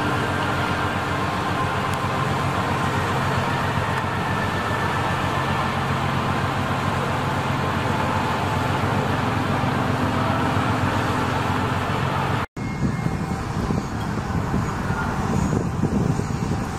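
Steady ship engine and machinery hum under a rush of wind and sea noise. About twelve and a half seconds in the sound cuts out for an instant and gives way to a rougher, gustier rush of wind with less hum.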